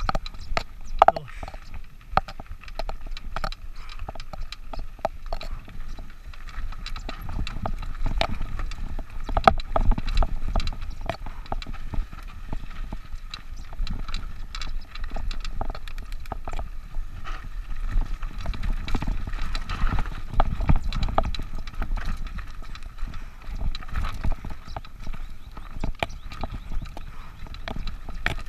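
Mountain bike rattling and clattering over a rough trail, with irregular knocks and clicks and a steady wind rumble on the microphone.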